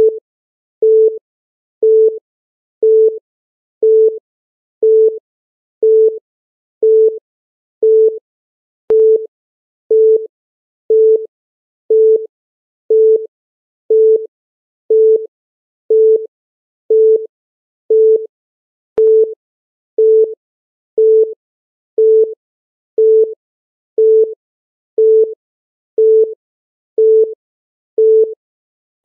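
Countdown timer beep: a short, single-pitched electronic tone repeating evenly once a second, marking each second as the timer counts down.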